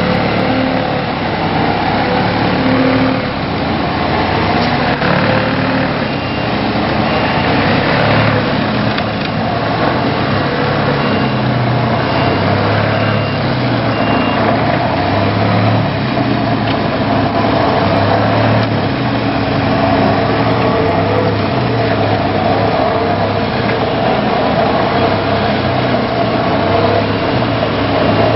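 Excavator-mounted telescopic vibratory hammer running on a steel sheet pile together with the excavator's engine: a steady, loud mechanical drone that pulses in its low end. A series of short high beeps sounds partway through.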